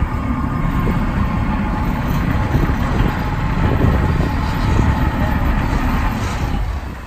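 Diesel engine of a small ice-breaking workboat running hard with a low rumble as it pushes through river ice floes; the sound drops away near the end.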